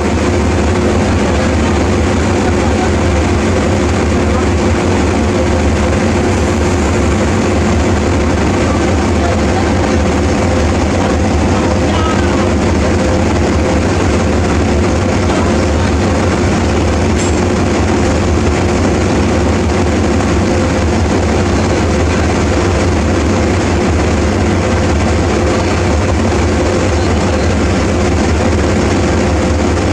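Diesel-electric locomotive engine running steadily while the locomotive stands still, a constant low drone with a few steady hum tones above it.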